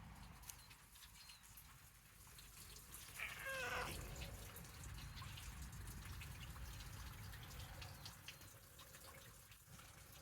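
A cat gives one short meow that falls in pitch about three seconds in, over a low rumble and faint scattered clicks.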